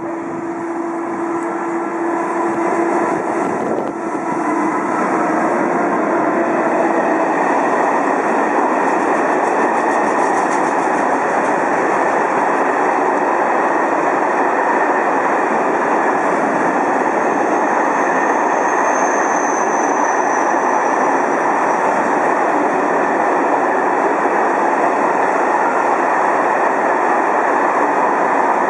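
Freight train of tank wagons hauled by SNCF electric locomotives (BB 26000 and BB 7200 series) passing close by: a steady, loud rumble of wheels on rail. A humming tone heard in the first few seconds fades as the locomotives go by, and a faint high squeal comes about two-thirds of the way through.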